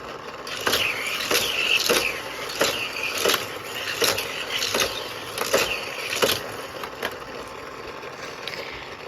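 Hot Wheels die-cast toy cars running on a toy race track: a series of sharp plastic clacks and rattles, about three every two seconds, stopping about six seconds in.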